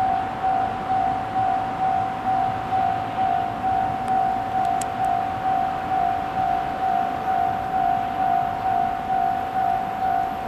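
Japanese level-crossing warning bell ringing, an electronic ding repeated evenly about twice a second, signalling that a train is approaching.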